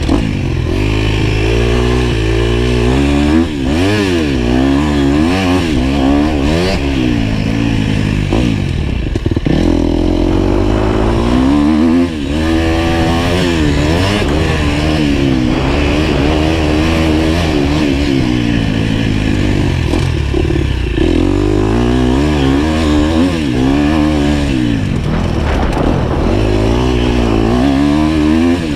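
GasGas motocross bike's engine, heard on board, revving up and dropping back over and over as the rider opens and closes the throttle and shifts around the track, with a brief backing-off about three seconds in and again near the middle.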